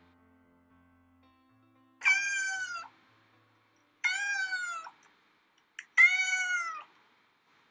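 A domestic cat meowing three times, about two seconds apart, each meow just under a second long and falling in pitch at its end.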